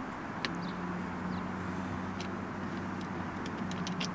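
A steady low engine hum of a vehicle, with scattered sharp clicks and a quick run of them near the end as hands and tools work on the door's window regulator mechanism.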